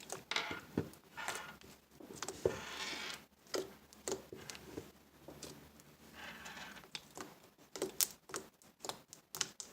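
Slime being kneaded and stretched by hand, giving irregular sticky crackles, squelches and small pops.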